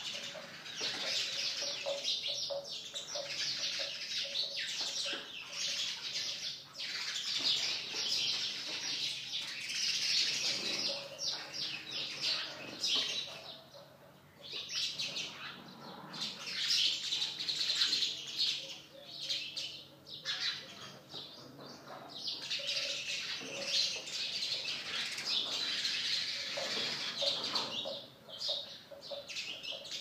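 A flock of house sparrows chirping continuously, with many overlapping high chirps. The chirping thins out briefly a few times.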